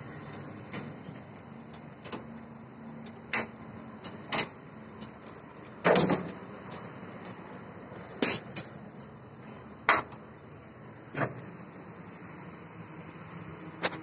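Key turning in the lock of a perforated steel engine grille, then the grille being unlatched and swung open: a series of sharp metallic clicks and clanks, the loudest about six seconds in, over a steady low hum.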